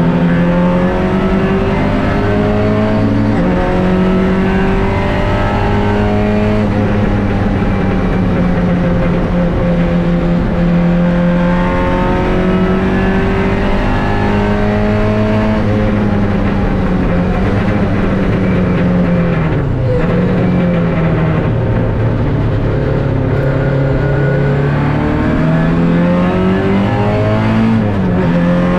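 MG B roadster's four-cylinder B-series engine at racing speed, heard on board. Its note climbs steadily through each gear and drops at the shifts, with a deeper dip about two-thirds of the way through as the car slows for a corner.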